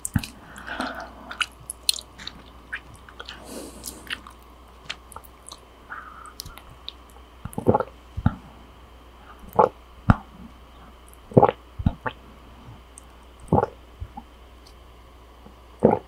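Close-miked drinking of soup from a plastic container: small wet mouth clicks and sips, then a run of strong gulps about every second or two in the second half.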